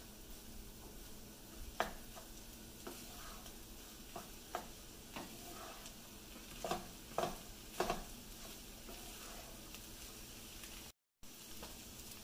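Beef fried rice sizzling in a pan while a wooden spatula stirs and turns it, with irregular scrapes and knocks of the spatula against the pan, several in quick succession about two-thirds of the way through. The sound cuts out for a moment near the end.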